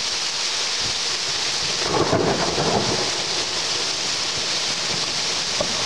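Heavy thunderstorm rain pouring steadily, with a short rumble of thunder about two seconds in.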